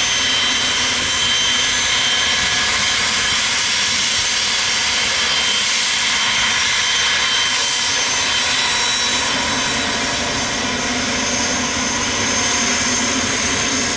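Twin Garrett TFE731 turbofan engines of a Cessna Citation VII business jet at takeoff power: a loud, steady jet rush with high whining tones, easing slightly in the last few seconds.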